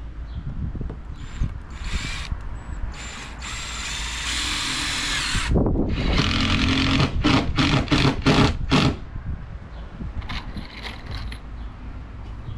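Power drill driving screws: a few short bursts, then a longer run of about two seconds, then a quick series of short trigger pulses.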